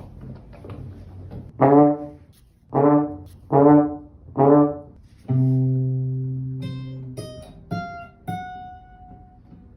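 Comedic brass sound effect, a trombone-style 'wah-wah': four short bending notes, then one long low note that fades away, followed by a few short high plinking notes.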